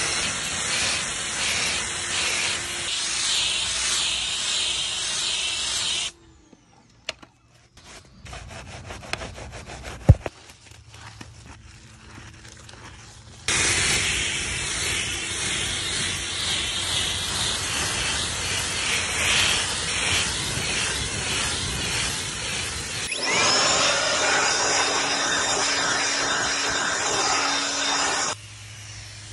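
Pressure washer spraying an RV's lower side panel and an aluminium trailer wheel and tyre: a loud, steady hiss of water. It stops for several seconds, leaving quieter rubbing and clicking with one sharp knock, then comes back. Near the end it gives way to a different, brighter steady rush.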